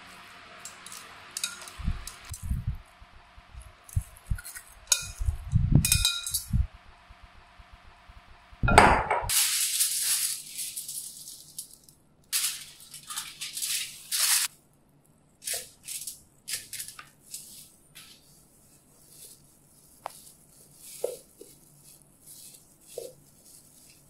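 Metal tongs clinking against a glass bowl and squelching through raw beef strips as they are tossed in seasoning. About nine seconds in, this gives way to aluminium foil crinkling and rustling as it is spread and smoothed flat by hand.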